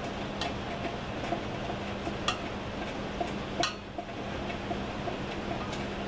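Small pot of borax solution heating on a gas burner: a steady hiss and low hum with scattered light ticks and pops at irregular intervals.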